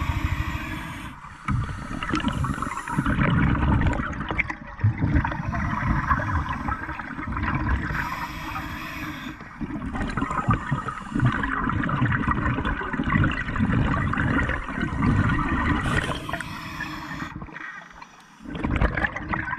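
Scuba diver breathing through a regulator underwater: a short hissing inhale about every eight seconds, three times, each followed by a long rush of bubbling exhaust bubbles.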